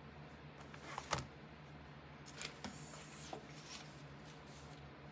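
Scissors snipping off loose strands, with one sharp snip about a second in and a few softer snips after, then a brief soft rustle.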